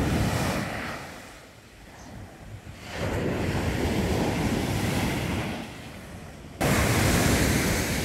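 Big sea waves breaking and washing up a sandy beach, the rush swelling and fading back in long surges, with a louder surge starting abruptly near the end. Wind blows on the microphone.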